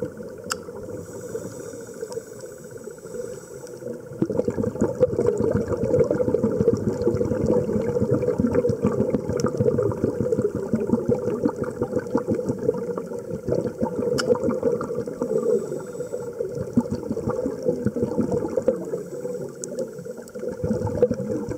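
Underwater sound picked up by a diving camera on a reef: a steady, dense crackling noise, quieter for the first few seconds and then louder.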